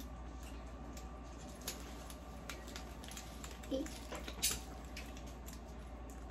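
Faint rustling and small scattered clicks as a fabric restraint strap and its lock hardware are handled and wrapped around the ankles, with a couple of louder clicks about four seconds in.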